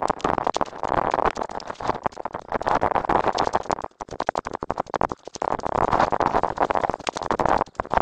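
Rustling, scuffing noise of someone walking a narrow bush track: footsteps and brushing past ferns and branches, mixed with handling noise on the camera. It comes in uneven gusts with brief lulls about halfway through.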